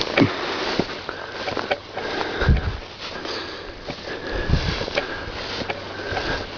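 A person walking on a dirt road: footsteps on dirt and gravel, with dull thumps about every two seconds, and the walker's breathing and sniffing close to the microphone.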